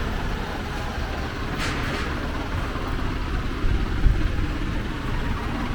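Street traffic noise: a steady low rumble of passing and idling vehicles, with a brief hiss about one and a half seconds in and a low thump about four seconds in.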